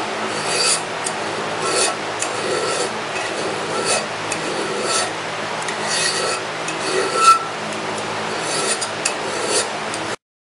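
Hand file stroking across the frontstrap of a 1911 pistol frame to blend it, about one stroke a second, with a run of quicker, shorter strokes near the end. A steady low hum runs underneath, and the sound cuts off abruptly shortly before the end.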